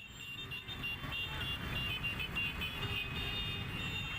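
Several vehicle horns honking in traffic: overlapping high-pitched horn tones, some short toots and some held longer, over the low rumble of engines and road noise.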